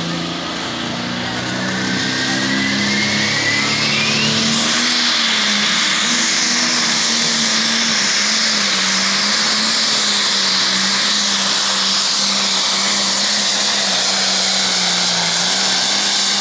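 Case IH MX255 limited pro stock pulling tractor's turbocharged diesel engine revving up as it launches, with a rising whistle in the first few seconds, then running flat out at a steady high pitch with a loud rushing hiss under full load pulling the sled.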